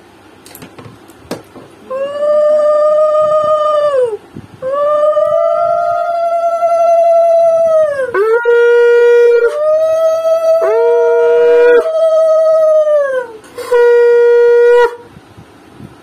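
A series of long, loud, steady pitched notes, each lasting one to three seconds, several jumping abruptly between a higher and a lower pitch and sagging in pitch as they end.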